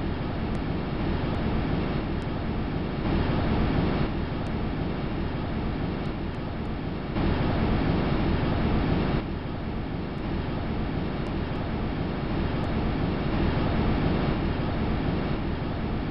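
A 'space sound' attributed to a moon of the Solar System: a steady, wind-like low rushing rumble with no tones in it. Its level jumps up and down abruptly a few times, as if spliced.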